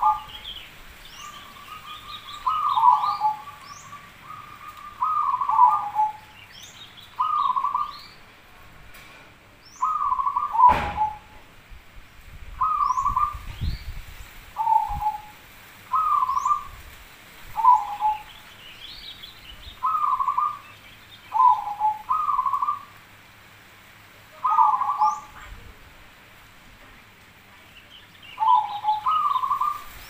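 Zebra dove (perkutut) cooing: short phrases that drop in pitch at the end, repeated about every two seconds. Fainter, higher chirps of other birds sit behind it, and there is one sharp knock about eleven seconds in.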